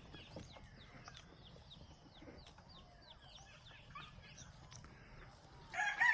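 Faint, rapid high chirping of birds throughout, then a rooster starts a loud crow near the end.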